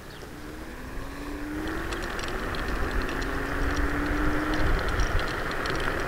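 Kugoo Kirin G3 electric scooter's 1200 W motor whining, the pitch rising slowly as it accelerates. A rushing noise of tyres and wind grows louder from about a second and a half in, with scattered light ticks.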